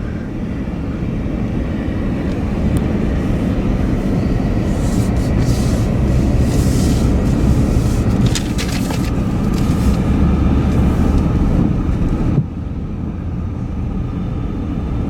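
Steady road and engine noise inside a moving car's cabin, a low rumble that grows louder through the middle and drops suddenly about twelve seconds in.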